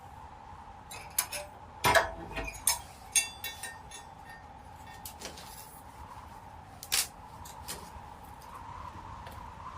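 A series of light knocks and clinks, like objects being handled, most of them between one and three and a half seconds in and one more sharp one about seven seconds in, over a faint steady hum.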